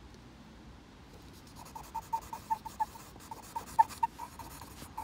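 Charcoal pencil scratching on paper in quick short strokes, starting about a second and a half in. A run of short squeaky pitched notes comes with it, about four a second.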